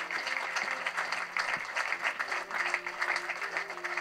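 Audience applauding steadily, with soft background music underneath.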